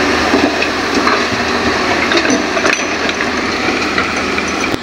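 Hitachi hydraulic excavator's diesel engine running under load while it loads soil into a dump truck, with scattered knocks and clatter of earth and stones dropping into the truck's steel bed.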